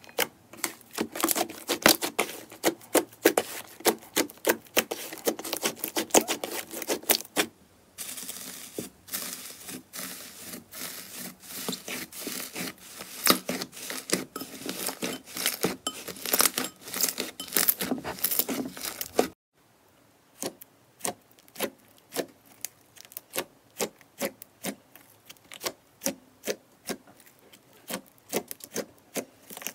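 Hands pressing, poking and kneading slime: a dense, irregular run of sticky clicks and small pops as air pockets burst and fingers pull free of the surface. It stops abruptly and starts again twice, about seven and nineteen seconds in, and is sparser in the last stretch.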